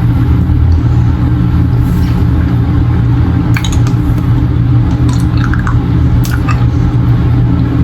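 Steady low drone throughout, with a few faint clicks and wet mouth sounds as a hard candy is sucked.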